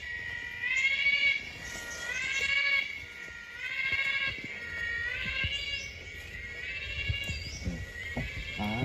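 An unidentified animal calling over and over: a series of high, pitched calls, each rising in pitch, about one a second.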